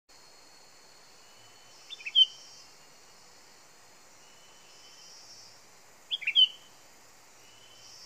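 Sooty-headed bulbul (kutilang) used as a decoy, calling: two short phrases of a few quick notes about four seconds apart, over a steady high-pitched background hiss.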